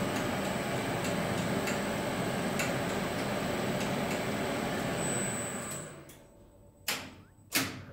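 Elevator traction machine running on a test run: a steady motor hum with a thin high whine and a light tick about once a second. It runs down about six seconds in, and two sharp clacks follow.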